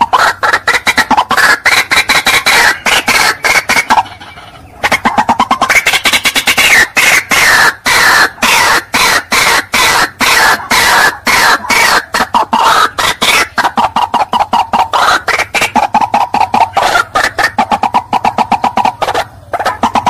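White-breasted waterhen calling: a loud, fast run of repeated call notes, several a second, with a short break about four seconds in.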